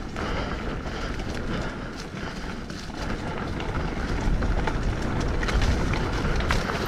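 Hardtail mountain bike rolling down dirt singletrack: tyres rumbling over the ground, with scattered clicks and rattles from the bike, and wind buffeting the microphone.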